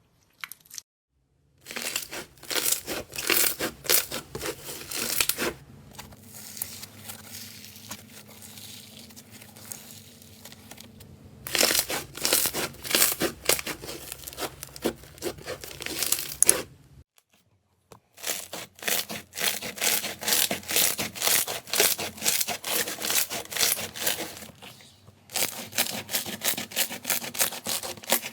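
Crunchy slime being squeezed and pressed, giving dense runs of sharp crackling pops, in several separate takes with short breaks between them and a quieter stretch in the middle.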